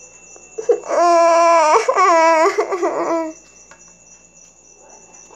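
A child's voice letting out a long, drawn-out whining wail, held almost on one pitch for about two seconds starting about a second in. It is an acted tantrum cry.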